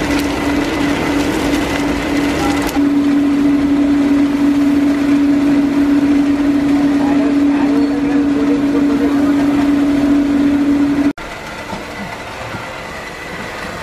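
Steady mechanical hum of the rice-puffing machine's motor and drum, holding one pitch, then cutting off suddenly near the end to quieter workshop noise.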